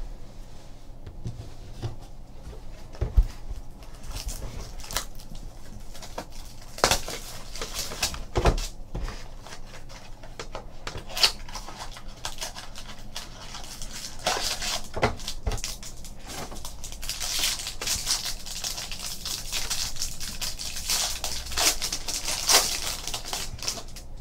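Hands opening a small cardboard Topps baseball card pack and sliding the cards out. A few scattered taps and knocks come in the first half, then from about the middle a longer stretch of rustling and scraping as cardboard and card stock rub together.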